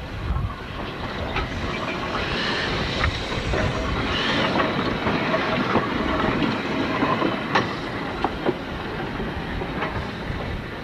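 Narrow-gauge steam tank engine moving slowly, with steam hissing from its open cylinder drain cocks. A few sharp clanks and clicks from the wheels and motion come through now and then, the clearest one about seven and a half seconds in.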